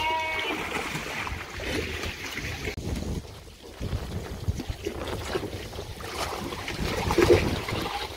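Dip water sloshing and splashing as lambs swim through a sheep-dip tank and scramble out, an uneven churning with a louder splash near the end.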